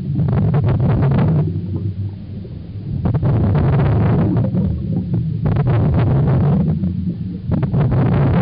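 Scuba regulator exhaust bubbles heard underwater: long bursts of low, rumbling bubbling as divers breathe out, with a quieter gap about two seconds in while breath is drawn.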